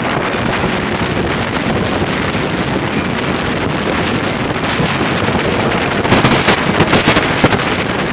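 Strong wind buffeting the microphone on an open ship deck, a steady rushing that grows into harder gusts about six seconds in.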